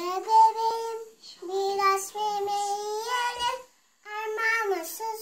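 A toddler girl singing a song in a small child's voice, in three phrases of held, sliding notes with short breaks between them.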